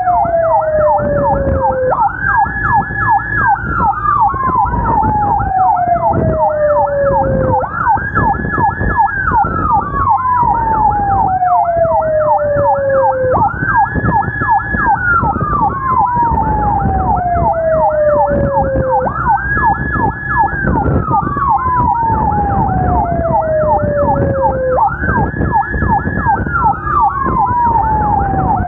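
Emergency sirens of a police motorcycle escort and ambulances sounding together. A fast warbling yelp runs under a slower wail that rises quickly, holds high, then falls slowly, repeating about every six seconds, over engine and road noise.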